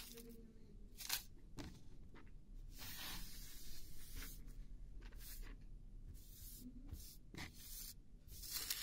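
Faint rustling of small cut paper slips being swept together and gathered by hand on a wooden tabletop, in short irregular rustles.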